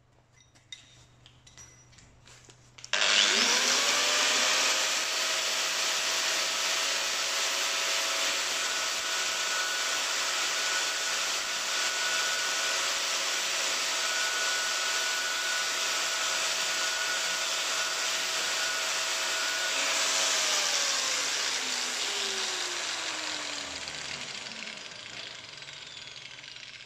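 Electric angle grinder switched on about three seconds in, spinning up to a steady whine with a hissing grind as a steel Torx T55 bit is ground against the disc. Near the end it is switched off and winds down, falling in pitch as it fades.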